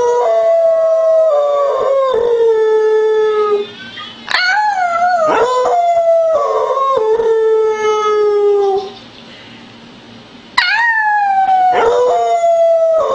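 Beagle howling: long drawn-out howls that jump up and then slide slowly down in pitch. There are three bouts, with short breaks about four seconds in and again near ten seconds.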